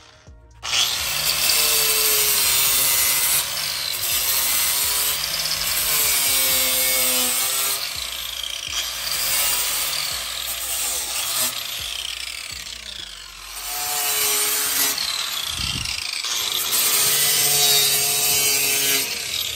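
Electric angle grinder with a sanding disc, running as it sands the edge of a speaker cutout in a wooden subwoofer box. It starts about half a second in, and its pitch wavers and dips a few times as it bears on the wood.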